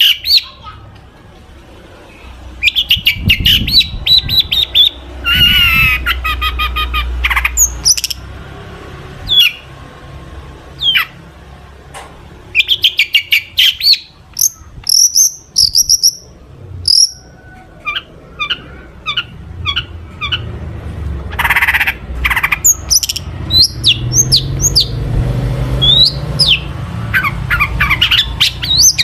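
Long-tailed shrike (cendet) singing a fast, varied song: rapid chattering trills and short whistled notes in quick runs, broken by brief pauses, with mimicked phrases of other birds woven in.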